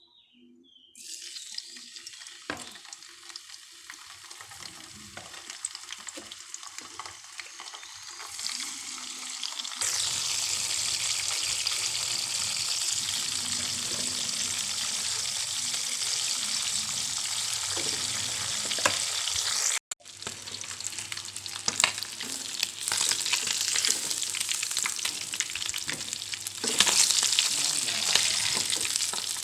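Fish frying in hot oil in a pan, sizzling with scattered spitting pops. The sizzle starts about a second in, grows much louder about ten seconds in, breaks off for an instant near the middle, and swells again near the end.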